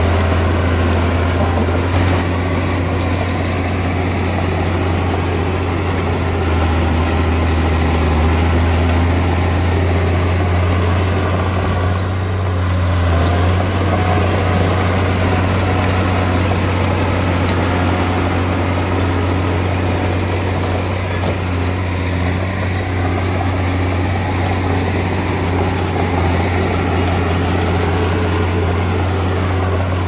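Heavy construction machine's diesel engine running steadily with a deep low drone.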